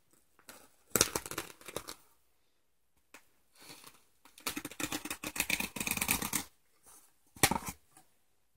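Packaging material being handled: paper and plastic rustling and crinkling in three bursts, a short one about a second in, a longer one in the middle, and a brief one near the end.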